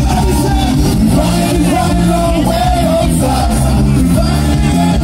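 Live band music played loud through a stage PA: a steady heavy bass line, with a male vocalist singing over it.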